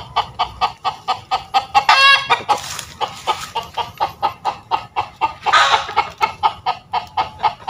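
Chickens clucking in rapid alarm, about five clucks a second without a break, with a louder squawk about two seconds in and another near six seconds: the chickens are frightened.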